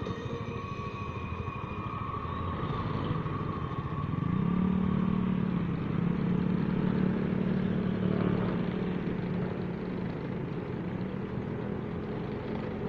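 Motorcycle engine running while riding in traffic, with road and wind noise. About four seconds in, the engine note becomes louder and holds steady.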